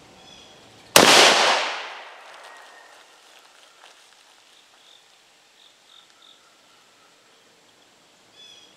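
A single shot from a 300 Blackout AR-style rifle firing a 155-grain cast bullet, about a second in, its report trailing off over a second or so. Birds chirp faintly before and after.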